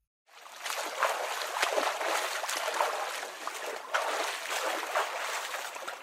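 Water splashing and sloshing, a dense run of small splashes that starts about a third of a second in after silence.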